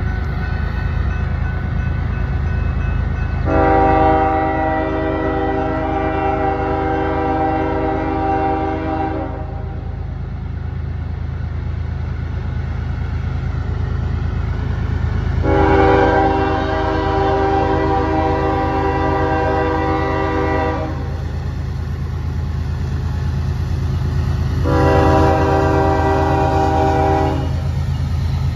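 Diesel locomotive's multi-chime air horn sounds two long blasts and then a shorter third, over the steady low rumble of the locomotive's engine. This is the opening of the long-long-short-long grade-crossing warning.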